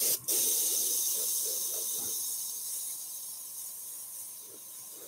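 Spraycraft SP50K dual-action airbrush spraying paint through a stencil: a short puff of air, then a steady hiss that grows gradually quieter.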